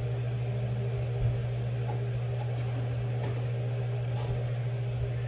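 Steady low mechanical hum, with a faint knock about a second in.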